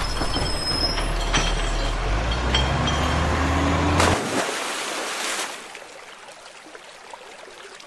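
A truck engine runs and rises in pitch, then cuts off as a toy dump truck plunges into river water with a sudden splash about four seconds in; the splashing lasts a second or two.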